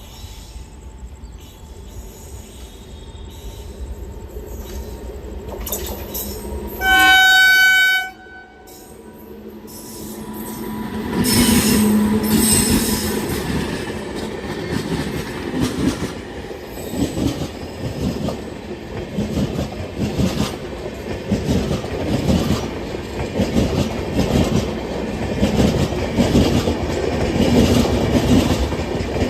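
WAP-7 electric locomotive-hauled express train approaching at speed and sounding its horn once for about a second, then passing with a steady, rhythmic clickety-clack of wheels over rail joints and some wheel squeal.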